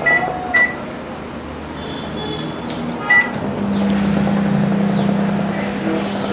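Microwave oven keypad beeping twice as the time is set, then one more beep a little after three seconds in. The oven then starts with a steady low hum, the start of a three-minute cooking cycle.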